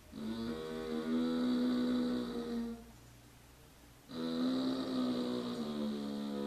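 A woman moaning, a creepy mock-zombie moan: two long drawn-out moans held at a steady pitch, each about two and a half seconds, with a pause of about a second and a half between them.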